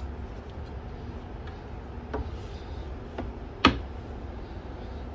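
Fold-out seat table and the hinged lid of its litter-bin compartment being handled: a few light clicks, then a sharp clack about three and a half seconds in as the panel is shut. Under it runs a steady low rumble of the train coach.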